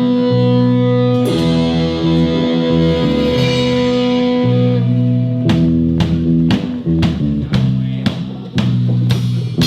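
Rock band playing an instrumental passage: held guitar chords with bass, then about five seconds in a steady drum beat comes in at about two hits a second.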